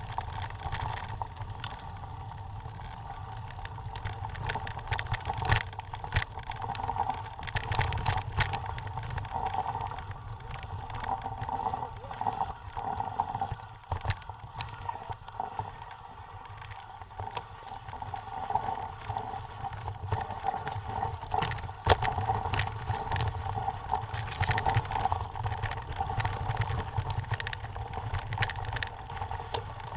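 Mountain bike ridden over a stony dirt trail: steady tyre and riding noise with a low rumble, and frequent sharp clicks and rattles from the bike jolting over stones.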